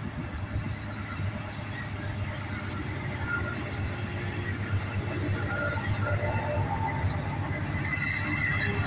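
Norfolk Southern freight train's diesel locomotives approaching, a low engine rumble growing steadily louder. A faint squeal of wheels on rail comes in near the end.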